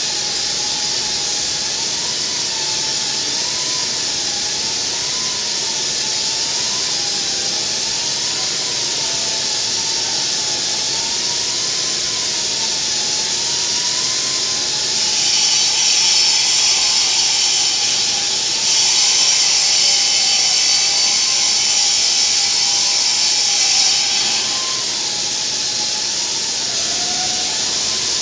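Granite CNC spindle turning a segmented diamond tool while an abrasive dressing stick is swept against it. A whine rises and falls steadily with the sweep over a constant hiss. About halfway through, a louder gritty grinding runs for several seconds with a short break. This is the coarse position-one stick grinding lines and valleys out of the diamond segments.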